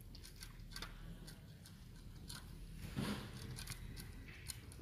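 Puppies licking yogurt out of plastic yogurt cups: an irregular run of small, quick wet clicks and taps of tongues and muzzles on the plastic, a little louder about three seconds in.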